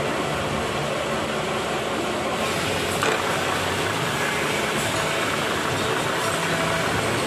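Workshop machine motor running steadily; about two and a half seconds in the sound turns brighter as an end mill cuts a keyway slot into a shaft, with a small knock soon after.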